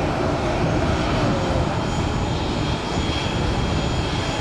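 Airbus A319-115 corporate jet's CFM56 turbofan engines running steadily at taxi power as it rolls and turns on the runway. There is a dense rumble, and a faint thin high whine comes in over the second half.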